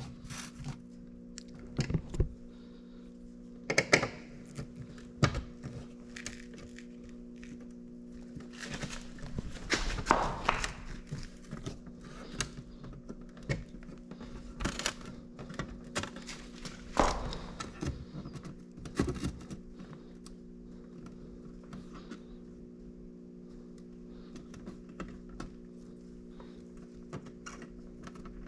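Scattered clicks, taps and thunks of parts and tools being handled during hand work on a small car's fittings, busiest in the first twenty seconds, over a steady low hum.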